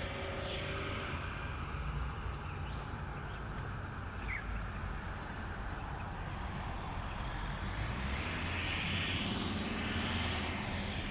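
A vehicle going by: a steady low rumble, with engine and road noise that swells to a peak about nine to ten seconds in.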